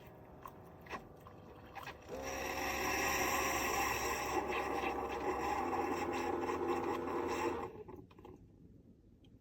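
A small electric motor or pump starts about two seconds in and runs for about five and a half seconds with a rough, scraping whir and a steady hum, then cuts off suddenly. A few light clicks and knocks come before it.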